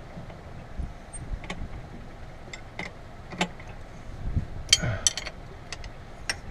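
Steel hand tools, a combination wrench and a socket on a ratchet, clicking and clinking against each other and the driveshaft flange bolts as they are worked by hand. The clicks are scattered and irregular, with a quick cluster of louder clinks about three-quarters of the way through.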